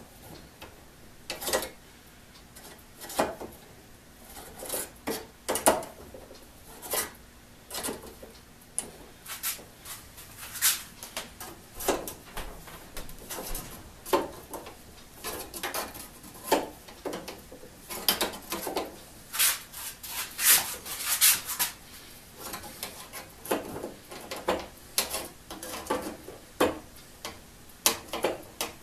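Plier-type saw set clicking as it is squeezed on tooth after tooth of a one-man crosscut saw's steel blade, bending each tooth over to set the kerf width. Sharp separate clicks about one a second, coming faster in a cluster about two-thirds of the way through.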